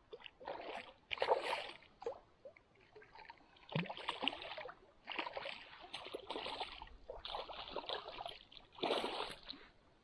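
A hooked fish thrashing and splashing in shallow water at the shore as it is reeled in, in about six irregular bouts of splashing, each lasting up to a second and a half.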